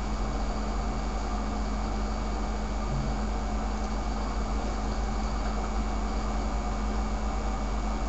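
Steady background hum and hiss: a constant low drone with a faint steady whine above it, unchanging throughout.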